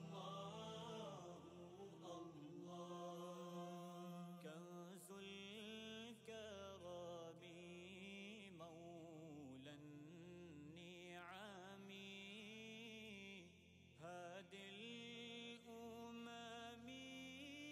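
Quiet background music: a chant-like vocal melody, sung in long gliding lines.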